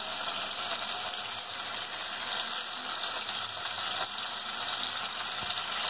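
Curd-marinated paneer pieces sizzling in hot oil in a nonstick pan: a steady high hiss with a few faint pops, the curd in the marinade making the oil splutter.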